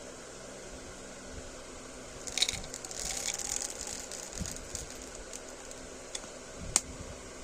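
Candy packaging being handled: a crinkly plastic rustle for about two seconds, then two sharp clicks near the end, over a steady low hum.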